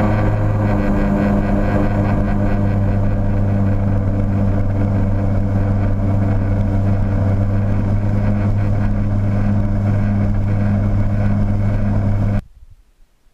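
Personal watercraft engine running at a steady cruising speed over calm water, a constant drone that cuts off suddenly near the end.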